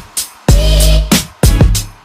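Background music with a heavy bass and a steady, punchy beat.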